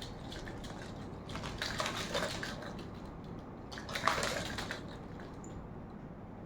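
Water splashing in two short bursts, a second or so apart.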